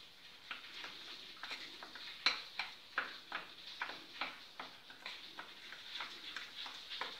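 Steel spoon stirring a thick flour-and-oil paste in a small stainless-steel bowl, clicking and scraping against the bowl about three times a second; the sharpest click comes a little over two seconds in.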